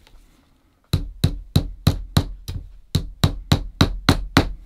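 A hammer tapping tacks through a leather rand into a shoe on its last: about thirteen quick, even taps, roughly three a second, starting about a second in.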